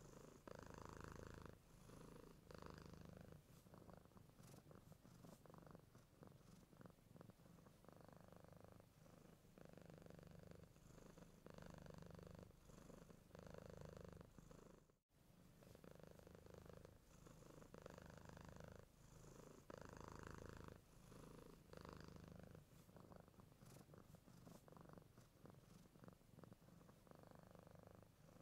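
Soft, steady cat purring that swells and eases with each breath, about once every one and a half to two seconds. It breaks off for a moment about halfway through.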